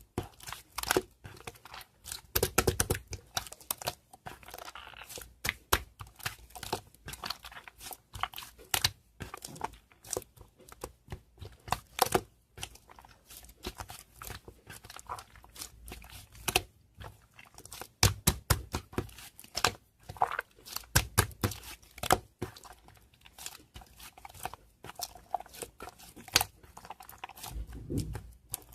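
Close handling sounds: crinkling, rustling and tearing, with many irregular clicks and taps and a few heavier knocks.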